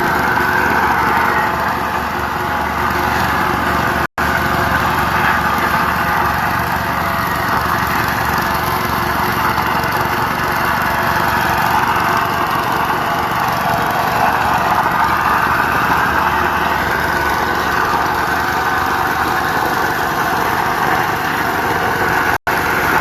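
A small engine being test-run, running steadily at an even speed. The sound drops out for an instant about four seconds in and again near the end.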